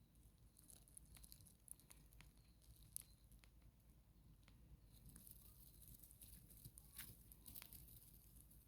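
Faint scratching and rustling with scattered light clicks, getting busier past the middle: starling nestlings stirring in their nest material.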